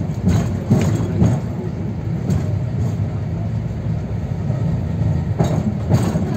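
Konstal 105Na tram running along the track: a steady low rumble from the wheels and running gear, broken by a few sharp clacks over rail joints, three in the first second or so, one a little after two seconds in, and two more near the end.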